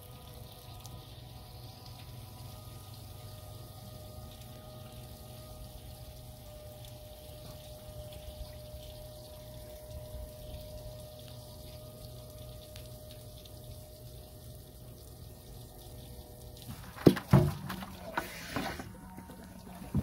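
Small 12-volt bilge pump running submerged in a bucket of antifreeze, a steady hum with a faint liquid flow, pushing antifreeze through a hose into a boat's air-conditioner water intake. The hum cuts off about seventeen seconds in, followed by a few loud clunks and rattles.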